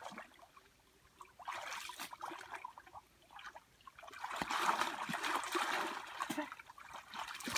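Hands splashing and sloshing through shallow muddy water while groping in the mud for fish. It comes in bouts: a short one about a second and a half in, then a longer, louder stretch from about four seconds in.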